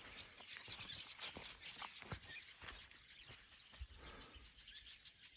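Faint outdoor ambience: a soft high hiss with scattered light ticks and clicks.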